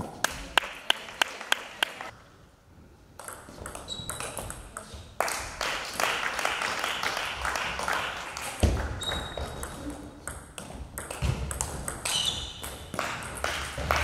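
Table tennis ball clicking quickly back and forth between bats and table in a rally, about four hits a second, stopping about two seconds in. After a short lull, a busier hall din with scattered ball clicks from other tables and murmuring voices.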